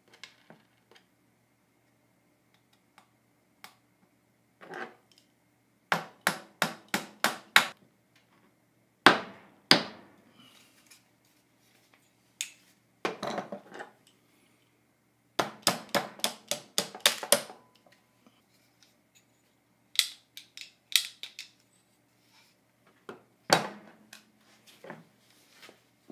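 Sharp taps and clicks from gunsmithing work on an AR-10-type lower receiver's trigger group, coming in quick runs of five or six at about three a second, with shorter clusters and single clicks between.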